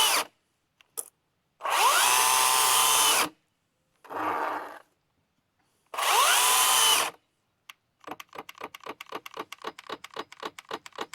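Milwaukee M18 battery top-handle chainsaw's electric motor triggered in short bursts, each spinning up with a rising whine and then stopping, three times. Near the end it gives a rapid, uneven stutter of short pulses. This is the misbehaviour under load that the owner cannot explain.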